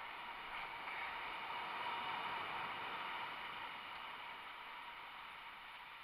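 Ocean surf washing up a sand beach, a steady hiss of breaking waves and foam that swells about a second in and eases off toward the end.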